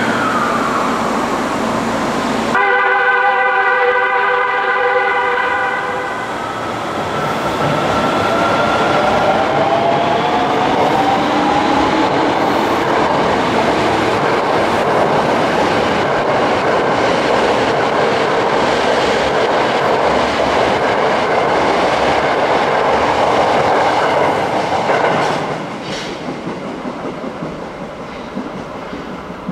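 Kita-Osaka Kyuko 8000 series subway train sounding its horn once for about three seconds, then pulling out. Its motor whine rises in pitch as it accelerates over rising wheel and running noise while the cars pass, and the sound drops away near the end as the train enters the tunnel.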